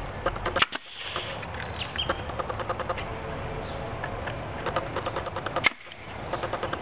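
Pneumatic stapler driving staples into pallet wood: two sharp shots, one about half a second in and one about five seconds later.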